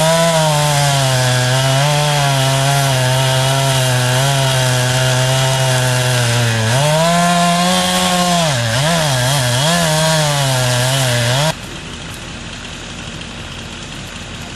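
Two-stroke chainsaw running at high throttle, its pitch rising, dipping and wavering as the chain loads in the cut. It cuts off suddenly about 11 seconds in, leaving much quieter background noise.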